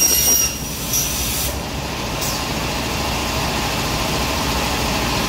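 Aluminium cutting saw's blade finishing a cut through an aluminium profile with a high metallic screech that stops about half a second in, then screeches again briefly around a second in. A short falling whistle follows, and a steady machine drone runs on after that.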